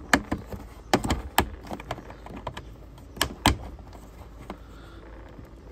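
Sharp, irregular clicks and knocks of hard plastic as a plastic connector is pressed and fitted into a plastic kids' slide, a few louder knocks among many lighter taps.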